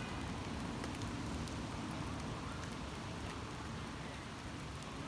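Steady rain falling on wet ground: an even hiss with faint scattered drop ticks.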